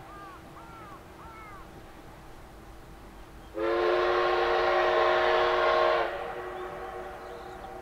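Steam locomotive whistle sounding one long blast of about two and a half seconds, starting about three and a half seconds in. The blast holds several pitches at once and cuts off sharply.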